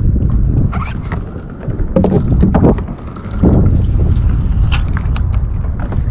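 Wind buffeting the microphone with a heavy low rumble that eases briefly twice, with scattered light clicks and a short high hiss about four seconds in.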